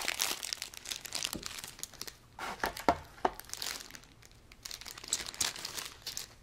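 Clear cellophane bag around a plastic model kit's sprue crinkling and crackling as it is cut and pulled open with scissors, with a few sharp clicks a little under 3 seconds in.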